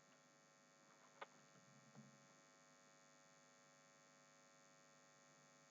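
Near silence: a faint steady electrical hum, with one faint click about a second in.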